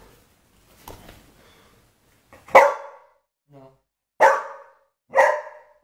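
Dog barking three sharp, loud barks about a second apart, starting about two and a half seconds in, with a brief faint whine between the first two. This is demand barking from a dog begging to play fetch.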